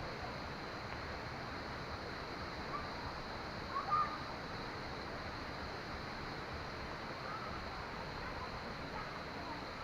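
Steady outdoor rushing noise like running water, with faint short bird-like chirps and a brief louder sound about four seconds in.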